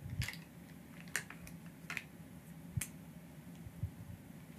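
A handful of faint, sharp clicks, roughly one a second, over a faint steady low hum in a quiet room.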